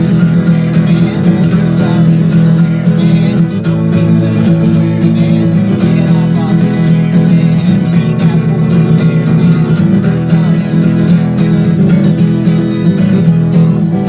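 Acoustic guitar strummed in a steady, even rhythm: an instrumental passage of a song, with no voice.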